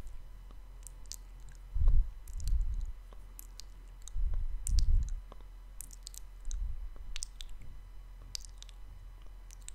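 Close-up ASMR mouth sounds: many small wet mouth clicks and smacks scattered throughout. Several louder, muffled low rumbles, about two seconds in, again around four to five seconds and briefly near six and a half, as hands sweep close to the microphone.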